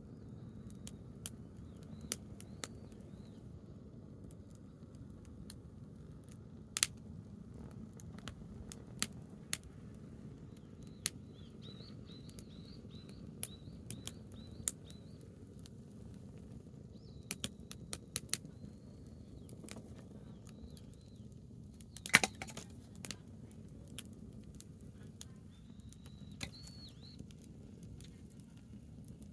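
Branch campfire crackling, with irregular sharp pops and snaps over a low steady hiss; the loudest pops come about 7 and 22 seconds in. A small bird chirps now and then in short series.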